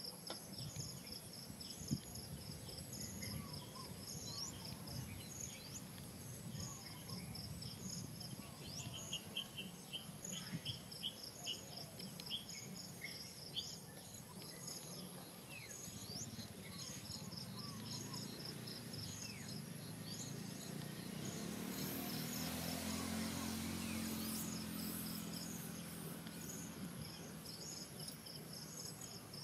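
Insects chirping outdoors in a steady, fast pulsing rhythm. A low hum swells and then fades about three-quarters of the way through.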